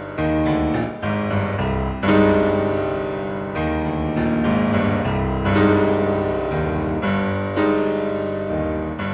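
Slow instrumental keyboard music, piano-like: chords struck every second or two, each ringing and fading away.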